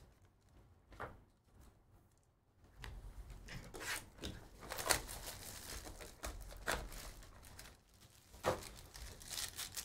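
Trading-card packaging being handled and torn open: irregular crinkling and tearing of wrapper and cardboard, starting about three seconds in after a quiet start.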